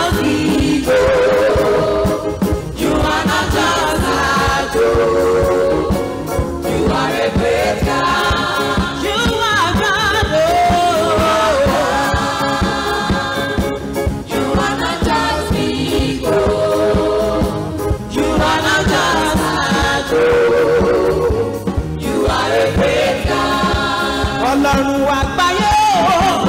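Gospel praise music: voices singing in short rising and falling phrases over a steady, dense instrumental backing, without a break.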